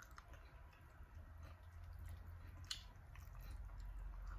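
Faint wet chewing, sucking and lip-smacking of chicken feet cooked in coconut milk, eaten by hand, with small squishy clicks and one sharper smack a little past the middle. A low steady hum sits underneath.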